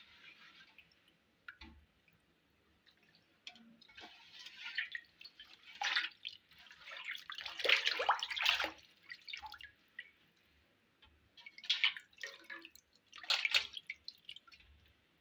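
Water splashing and dripping in irregular bursts as raw chicken pieces are rinsed by hand in a vessel of water.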